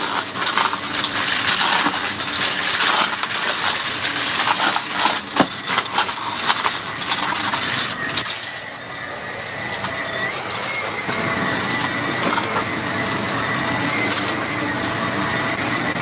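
Shark Rotator upright vacuum running on carpet while it sucks up a pile of crunchy debris, which crackles and rattles up through the machine over a steady motor whine. The crackling is dense for the first half and thins out after about eight seconds, leaving mostly the motor.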